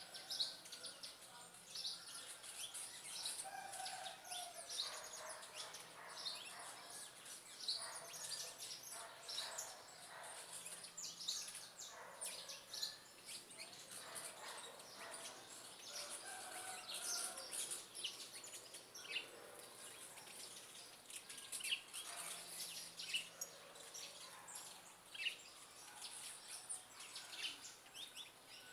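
Backyard birds chirping: many short, high calls, several at a time and overlapping, over a steady high hiss.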